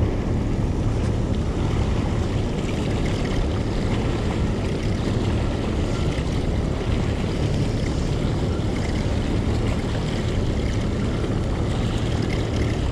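A 50-horsepower outboard motor running steadily with a low hum, under the rush of water along the boat and wind buffeting the microphone.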